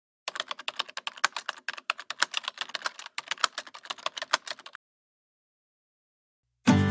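Typing sound effect: rapid keyboard key clicks that stop about two-thirds of the way through. Music begins right at the end.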